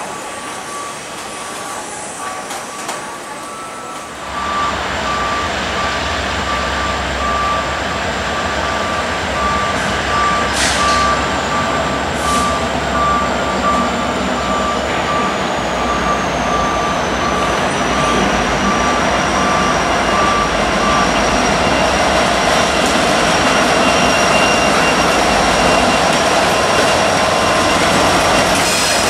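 Hopper cars rolling past over the rails. About four seconds in, the sound gives way to a Norfolk Southern freight led by SD70ACe 1042 approaching and passing with its diesel engines rumbling, a repeated electronic beeping tone through most of its approach, and a thin high wheel squeal.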